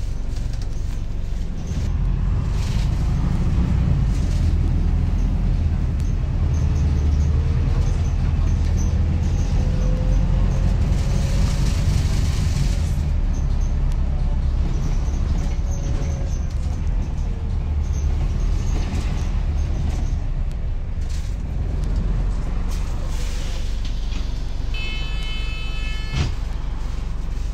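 Inside a moving Volvo B5TL / Wright Gemini 3 diesel double-decker bus: steady engine and road rumble with rattling from the body and fittings, and a faint whine that rises and then falls in pitch. Near the end a short electronic tone sounds for about a second and a half.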